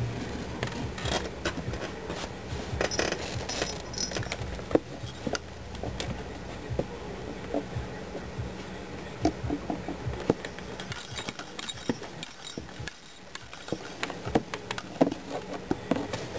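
A kitten playing in a homemade cardboard box toy, making irregular light knocks, scrapes and jingles as it bats at hanging toilet-paper rolls and a jingle ball.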